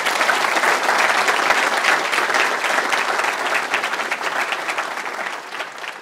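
Audience applauding: a dense, steady clapping that tapers off near the end.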